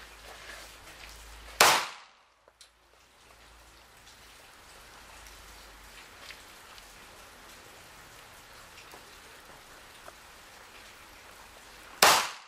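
Two shots from a 9mm semi-automatic pistol, about ten seconds apart: one a little under two seconds in and one near the end.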